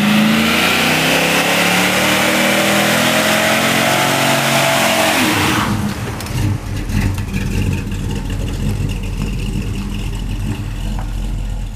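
A car engine revving hard, its pitch climbing and then falling, over a loud hissing screech of spinning tyres. About halfway through the sound cuts to a lower, rougher engine rumble as a car spins its rear tyres in a smoky burnout.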